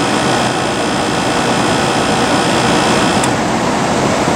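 Daewoo window air conditioner running with its fan and compressor on, a loud steady rush of air with a faint high whine. About three seconds in there is a brief click, and part of the whine stops.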